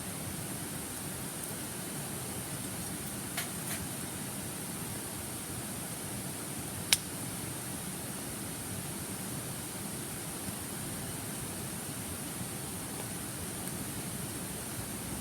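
Steady rushing of a shallow river, with a few sharp snaps from a wood campfire, the loudest about seven seconds in.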